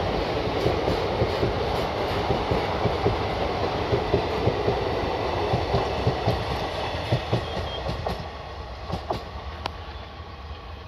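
Railway coaches running past close by, wheels clacking over rail joints in a regular rhythm over a steady rumble. The sound fades away over the last few seconds as the train recedes.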